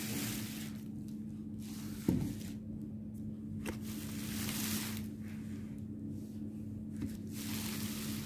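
Rustling and handling noise that comes and goes, with one sharp knock about two seconds in and two light clicks later, over a steady low hum.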